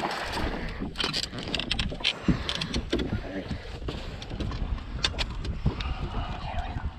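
Wind rumbling on the microphone, with scattered knocks and rattles as a landing net holding a hooked bass is swung aboard and handled.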